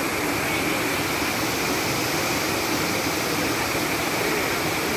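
Steady rush of falling water from a waterfall, an even noise that holds level without swells or breaks.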